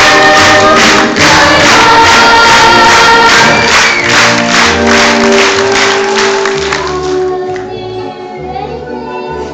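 Large stage cast singing a chorus number together over instrumental accompaniment with a steady beat of about two strokes a second. About seven seconds in the full sound thins out and drops in level, leaving fewer held notes.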